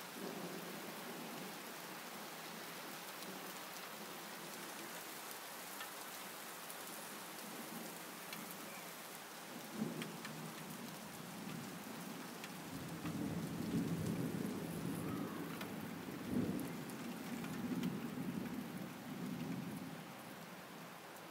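Steady rain falling, with a roll of thunder rumbling in about halfway through that swells and ebbs for several seconds before fading near the end.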